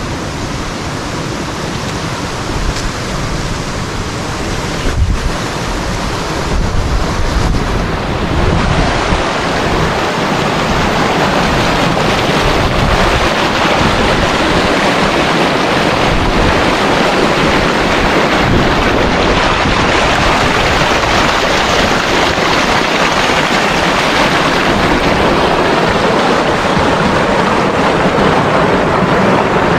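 Waterfall: the steady, loud rush of falling water, growing louder about eight seconds in.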